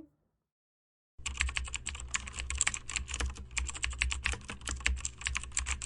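Fast typing on a computer keyboard: a dense, uneven run of key clicks that starts about a second in, over a low steady hum.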